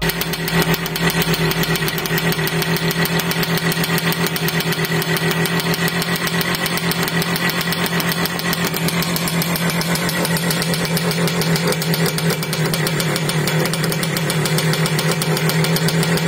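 Minsk motorcycle's single-cylinder two-stroke engine running at a steady idle, with a fast, even pulsing beat.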